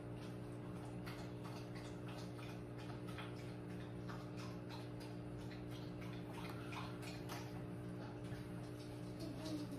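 Faint steady hum with light, irregular ticking and clicking throughout, and a brief low wavering sound near the end.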